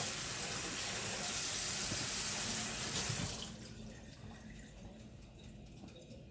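Kitchen tap running into a sink, turned off about three and a half seconds in.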